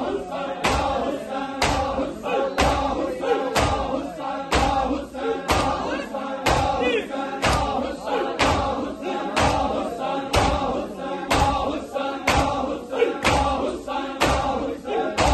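Crowd of Shia mourners doing matam, slapping their bare chests in unison about once a second while chanting together in a Muharram lament.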